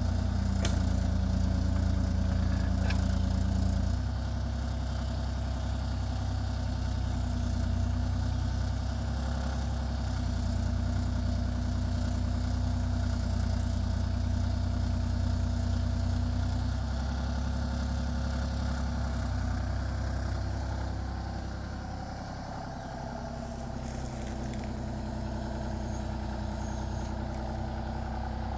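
Compact excavator's diesel engine running steadily, its pitch and level stepping down about four seconds in and dipping briefly about three-quarters of the way through.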